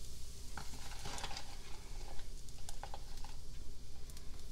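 Rendered bacon fat sizzling in an electric skillet with scattered small pops as cornstarch is sprinkled in to start a roux, the hiss swelling briefly about a second in.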